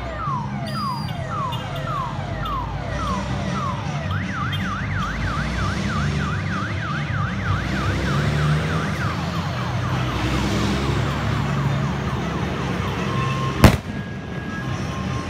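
Ambulance siren cycling through its patterns: falling wails about two a second, then a fast rising-and-falling yelp for about five seconds, then quicker, fainter sweeps, over a low rumble of vehicle engines. A single sharp bang near the end is the loudest sound.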